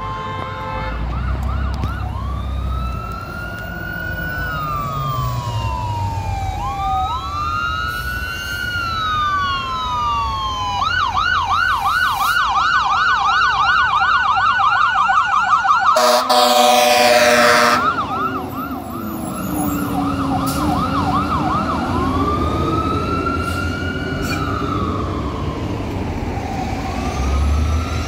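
Fire engine's electronic siren on a slow rising-and-falling wail, switching to a fast yelp. About two-thirds through, a long blast of the air horn is the loudest sound. The siren then goes back to yelp and wail, with a low engine rumble underneath.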